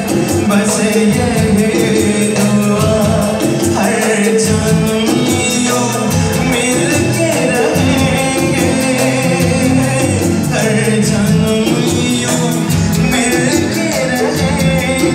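Live Hindi film song duet with a man singing into a microphone, backed by keyboard and hand drums (tabla and dholak), amplified through stage speakers.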